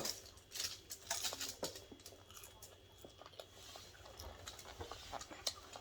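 Faint, scattered clicks, taps and mouth sounds of people eating and handling food with their hands.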